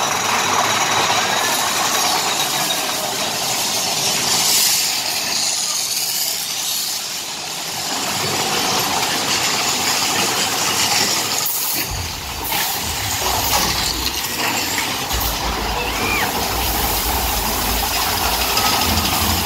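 Mine-train roller coaster running through a rock tunnel: a steady, loud roar of wheels on track and rushing air. A deep rumble joins about two-thirds of the way through.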